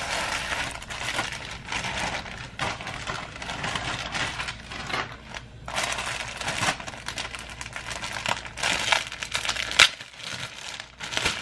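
Plastic packaging crinkling and rustling as it is handled: a poly mailer opened and a clear plastic garment bag pulled open, irregular crackles with one sharp snap near the end.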